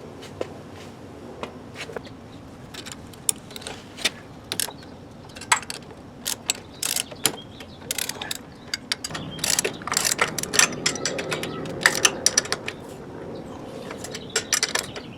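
Ratchet wrench clicking in irregular runs as the kickstand extension's 10 mm locking nuts are torqued down; the clicks come sparsely at first and grow denser and louder from about nine seconds in.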